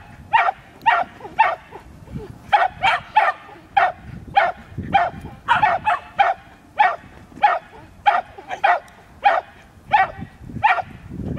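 A dog barking again and again, about two sharp barks a second, while running.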